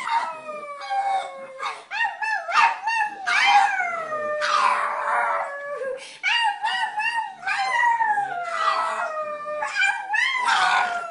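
Pug howling: a run of long drawn-out howls that slide down in pitch, with shorter choppy calls between them.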